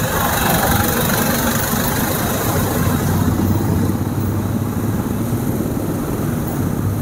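A motorcycle engine running steadily at low speed in slow, congested traffic: an even low hum, with the noise of the cars and motorbikes around it.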